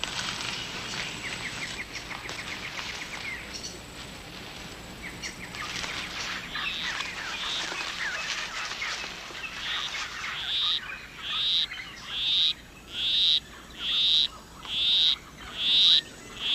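Rainforest background chorus with rapid high trills. From about ten seconds in, a male poison arrow frog gives his monotonous courtship call: short high notes a little more than once a second, growing louder, seven or so in a row.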